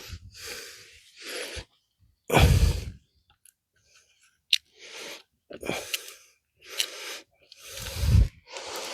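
Tools and transmission parts being handled and shifted about: a run of short clattering, scraping noises with a couple of sharp clicks.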